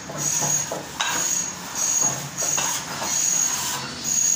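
A plasterer's long straightedge rule being worked over fresh plaster on a wall: repeated scraping strokes, one after another, with a hissy rasp on each stroke.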